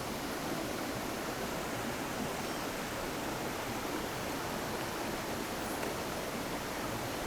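Steady rush of shallow river water running through a small chute.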